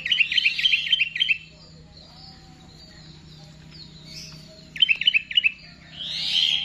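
Sooty-headed bulbul (kutilang) singing: a fast run of repeated sharp chirping notes for over a second, another short run about five seconds in, then a harsh raspy call near the end. A faint steady hum lies underneath.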